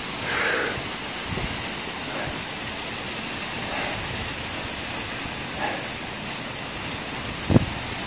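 Steady rushing of a waterfall splashing down onto rocks, with a short low thump near the end.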